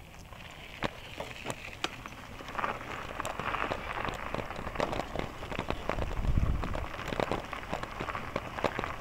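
Bicycle tyres rolling over a gravel trail: a steady crackle of crunching stones with many small sharp clicks, growing louder about three seconds in. A brief low rumble just after six seconds.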